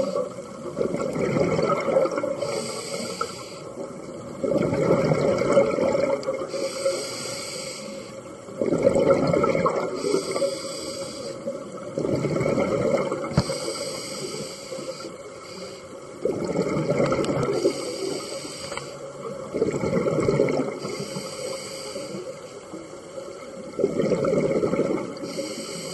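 Diver's scuba regulator underwater: hissing inhalations alternate with bubbling bursts of exhaled air, about one breath every four seconds, seven exhalations in all.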